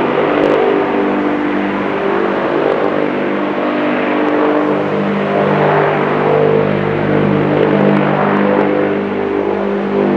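A loud, steady engine drone with several held pitches, growing fuller in its low part about halfway through.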